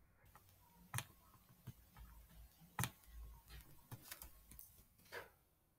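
Faint, scattered computer mouse clicks, the two sharpest about one second and about three seconds in.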